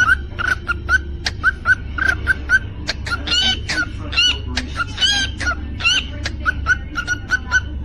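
Cockatiel whistling and chirping: quick short chirps, about four a second, with several louder, curving whistles a few seconds in. A steady low hum runs underneath.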